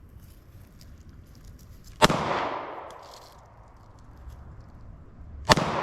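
Two shots from a 9mm Glock 19 pistol, about three and a half seconds apart, each a sharp crack followed by an echo that fades over about a second.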